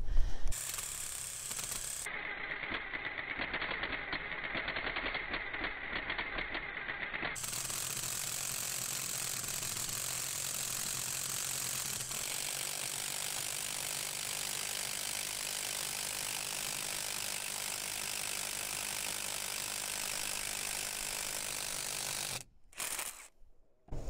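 Milwaukee M18 cordless drill running steadily as its 1 3/8-inch paddle bit bores into a birch log. It stops near the end.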